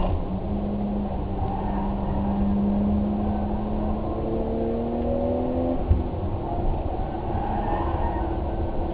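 A vehicle engine running over a steady low rumble, its pitch drifting slowly up and down, with a single knock about six seconds in.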